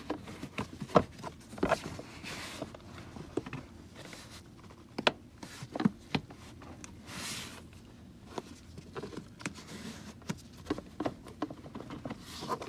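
Plastic interior trim panel being worked into place by hand: scattered light clicks and taps of plastic against plastic, with a few brief scrapes as the panel slides against the surrounding trim.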